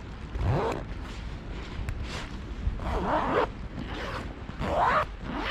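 Backpack zip pulled back and forth in short strokes, several times, each a rasping sweep of about half a second.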